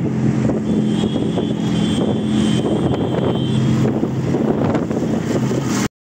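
A vehicle's engine running steadily while moving, with road and wind noise on the microphone. A thin high whine joins for a couple of seconds in the middle, and the sound cuts off abruptly at the very end.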